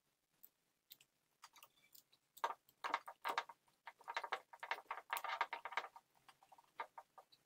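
Quick, irregular clicking and rattling of a smart lock cylinder's plastic battery-holder heads and brass cylinder as they are handled and fitted together. The clicks start sparse and come thick and fast from about halfway through.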